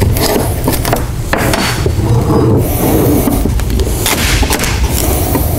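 A wood chisel prying and levering the cut pieces of a hardwood floorboard out of the floor: irregular knocks, splintering and wood scraping on wood.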